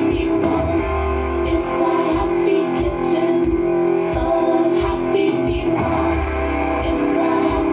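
Recorded music with a steady beat playing over a club's sound system.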